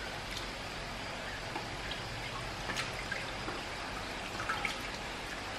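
Brine dripping and trickling off a plastic ladle and wet sliced pickled bamboo shoots as they are scooped from a bucket into a bowl, with a few light scattered clicks and splashes.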